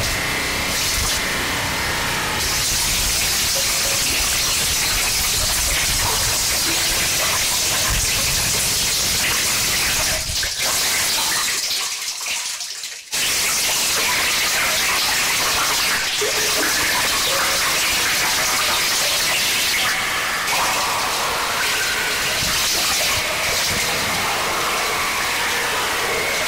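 Harsh noise music: a dense, steady wall of hissing static and distortion. About halfway through it thins out and nearly drops away for a second, then cuts back in suddenly at full level.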